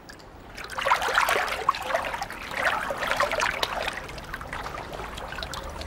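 Water splashing and trickling in a dolphin tank as the dolphins move about. It is busiest for the first few seconds, then eases to a lighter trickle.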